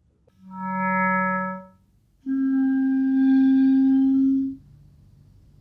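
Clarinet playing two held notes, demonstrating a subtone made by fingering a low note and lifting a higher finger: a lower note that swells in and fades, then a higher note that starts abruptly and is held for about two seconds.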